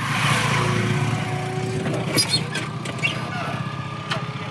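Powertrac tractor's diesel engine running steadily, with a couple of light clicks.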